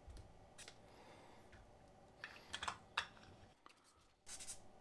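Faint scratching of a felt-tip marker on a paper sticky note, and scattered light clicks and taps as small electronic parts and notes are handled on a silicone work mat. A brief silent gap falls near the end, followed by a few slightly louder taps.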